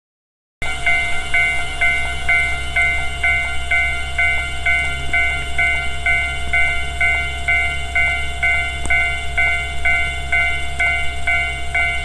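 Japanese level-crossing warning bell ringing in a steady electronic 'kan-kan' rhythm of about two strikes a second, starting about half a second in. This is the crossing signal that a train is approaching.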